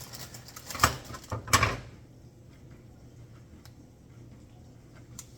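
Kitchen oven door being opened, with two loud clattering knocks about one and one and a half seconds in, then only a faint steady low hum.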